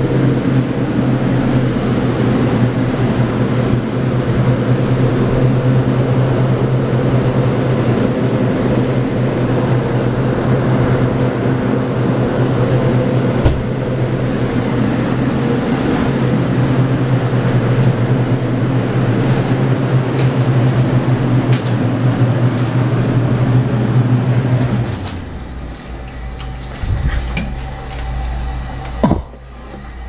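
Walk-in cooler's refrigeration unit running with a steady low drone. The drone drops off suddenly about 25 seconds in, leaving quieter handling noises and a few clicks.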